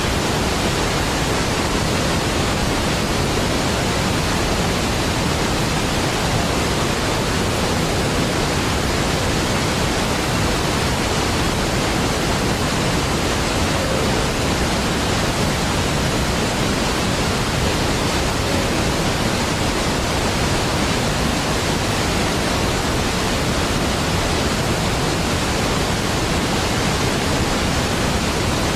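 Steady, unbroken rush of a large waterfall at Niagara, a deep, even water noise that does not change.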